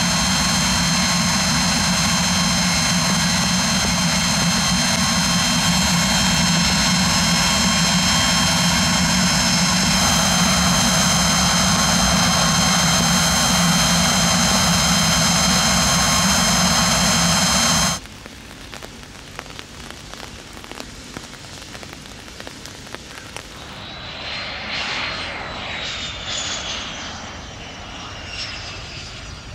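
Pilatus PC-24's Williams FJ44 turbofans running at close range: a loud, steady high whine over a low rumble. About eighteen seconds in it cuts to a quieter, more distant Dassault Falcon trijet on the runway, whose turbofan whine falls in pitch as it passes.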